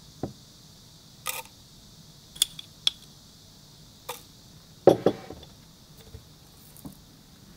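A metal spoon clinking against a glass jar and tapping inside a stainless-steel mug as coffee is spooned in: a scattering of light, separate clinks. A heavier knock about five seconds in, as the mug is handled.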